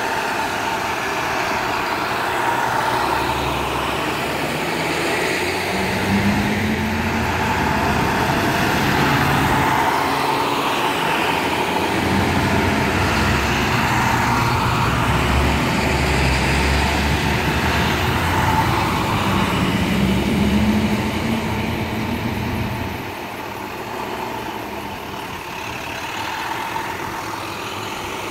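School bus engines running and pulling away as buses turn out one after another and pass close by, with the low rumble swelling as each accelerates. The sound eases off about three-quarters of the way through.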